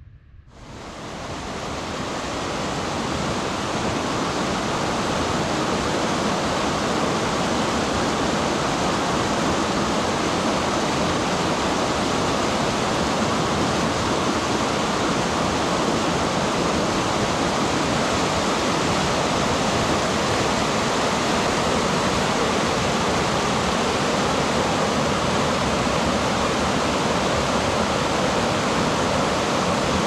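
Mountain stream rushing through whitewater rapids over boulders: a steady, dense rush of water that fades in over the first couple of seconds and then holds level.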